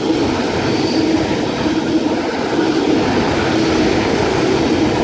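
Eight-car S-set double-deck electric suburban train passing through the station: a steady rolling rumble of wheels on rail with a level hum that comes and goes.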